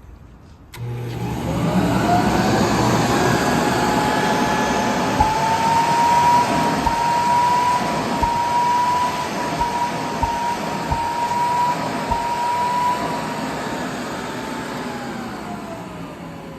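Makita Model 410 woodworking dust collector switched on for a running check: its motor starts suddenly, whines up to speed and runs steadily, then is switched off near the end and spins down with a falling whine.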